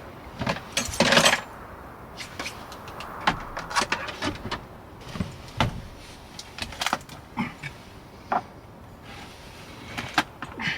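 Irregular light knocks and clicks of kitchen utensils and cookware being handled while cooking, over a steady background hiss.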